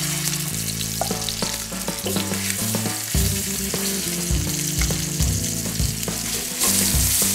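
Lamb shanks searing in hot olive oil: loud sizzling that starts suddenly as the meat goes into the pot and grows louder again about two-thirds of the way in as another shank goes in. Sharp clicks of the metal tongs against the pot come through the sizzle.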